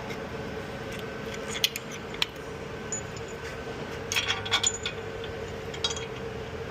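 Sharp metallic clicks and clinks, single ones and a short cluster about four seconds in, over a steady running hum.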